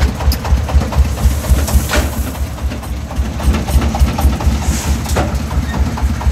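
Single-cylinder diesel engine of a công nông three-wheeled dump truck chugging in a fast, even beat as the truck works through mud, with a couple of short clanks.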